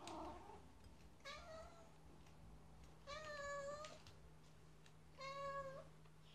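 A domestic cat meowing three times: a short meow, then two longer ones, each about a second and a half or two apart. The cat is begging for a treat.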